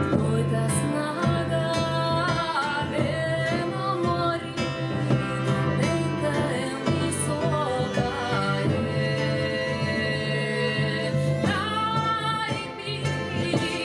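Macedonian folk song performed live: a woman singing an ornamented melody, accompanied by two bowed violins and acoustic guitar.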